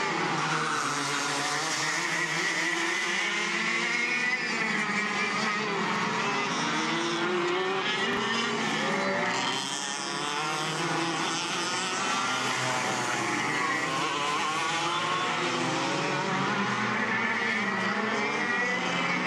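Racing go-kart engines: two karts running close together on track, their engine notes overlapping and repeatedly rising and falling in pitch as they accelerate and ease off.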